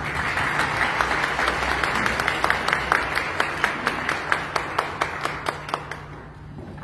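Audience applauding: a dense round of clapping that thins to scattered single claps and dies away near the end.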